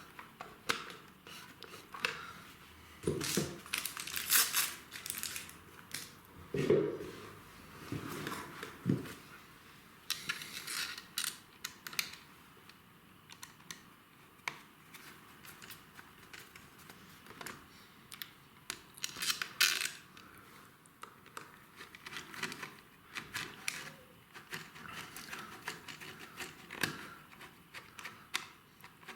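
Irregular clicks, scrapes and rustles of hands folding stiff electrical cables into a wall back box and fitting a double socket faceplate over them.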